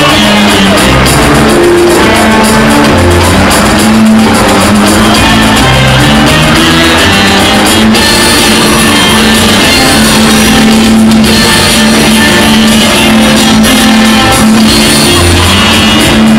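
Loud music with low notes that change every second or so.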